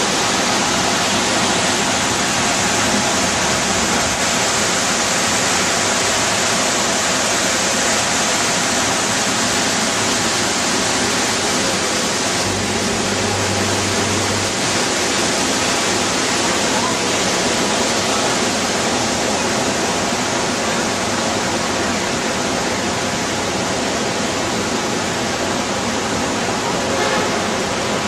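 Ravana Ella waterfall: a steady, even rush of falling water.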